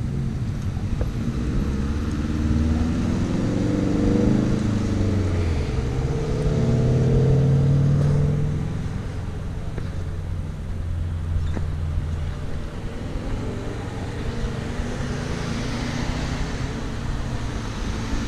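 Cars driving through an intersection: engine sound of vehicles pulling away, the engine tones rising in pitch in the first half and loudest about eight seconds in. Near the end a car passes close with a rush of tyre noise.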